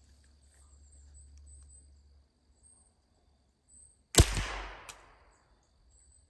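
A single gunshot about four seconds in, a sharp crack with a short echoing tail, fired at a squirrel. Insects buzz and chirp faintly underneath.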